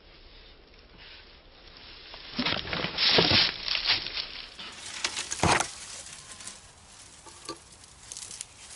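Dry leaf litter and twigs rustling and crunching as a person moves about and handles a branch, with one louder knock about five and a half seconds in.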